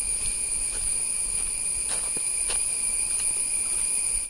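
Forest insects shrilling in a steady, high-pitched chorus, with a few faint taps.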